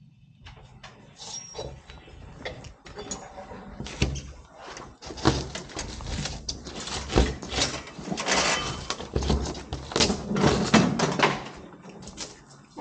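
Scraping strokes and irregular knocks as e-board foam insulation panels are cut and handled, busiest through the middle of the stretch.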